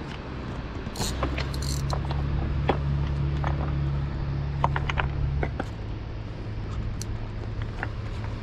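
Spinning reel being cranked while fighting a hooked fish: a low, steady gear whir that starts about a second in and stops about five and a half seconds in, with scattered light clicks.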